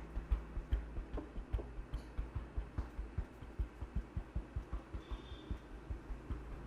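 Rapid, rhythmic hand strikes of a barber's percussive massage, heard as a steady run of muffled thumps at about five a second.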